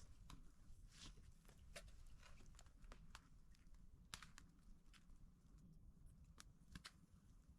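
Faint, irregular small clicks and taps, a few a second, over a low, quiet rumble.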